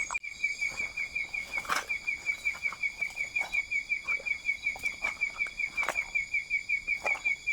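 Night insects chirping: a high, evenly pulsed chirp about five times a second over a steady higher insect drone, with a couple of brief knocks as the wader moves about.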